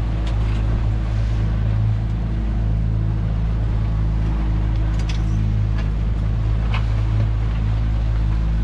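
Twin outboard motors running steadily under way at trolling speed, a constant low engine drone, with a couple of sharp knocks past the middle.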